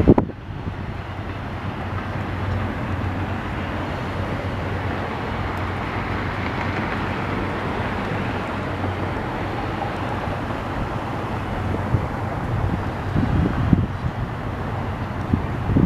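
Passenger train running on the track with a steady rumble. Gusts of wind buffet the microphone near the end.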